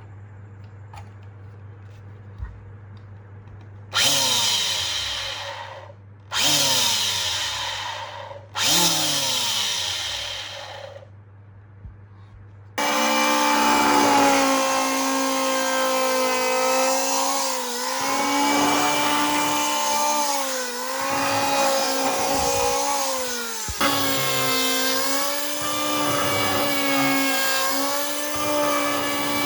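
Restored Maktec MT191 electric hand planer's motor switched on in three short bursts, each winding down in pitch. It then runs continuously with a steady whine whose pitch dips several times, typical of the cutter drum taking load while planing wood.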